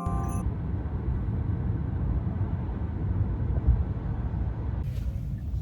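Steady low rumble of a moving vehicle, heard as continuous road or engine noise. It turns brighter and hissier near the end.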